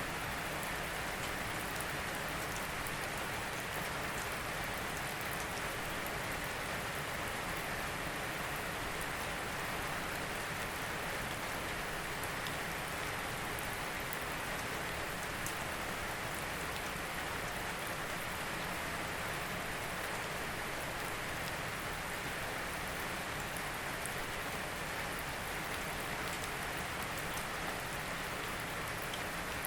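Steady rain falling, an even hiss of many drops with faint fine patter on top.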